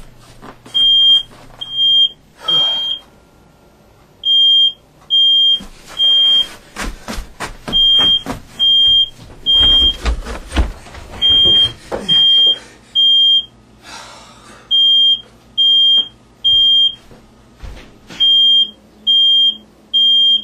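Smoke alarm sounding in its repeating pattern: three short high beeps, a pause, then three more, over and over. About halfway through comes a run of knocks and thumps, the heaviest about ten seconds in.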